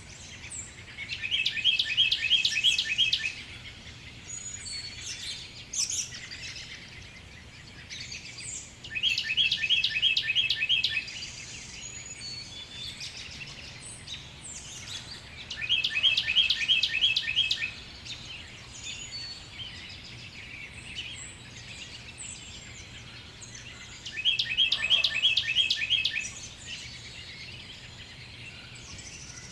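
A songbird singing the same fast trill-like song of rapidly repeated notes four times, about two seconds each, roughly every seven to eight seconds, with fainter bird chirps in between.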